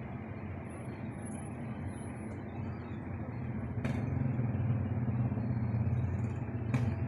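Motor vehicle engines running in the street, a steady low rumble that grows louder about four seconds in. Two sharp clicks are heard, one near the middle and one near the end.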